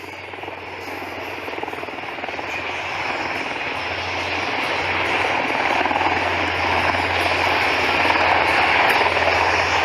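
Military aircraft engine noise growing steadily louder as the aircraft approaches, with a constant low hum beneath it.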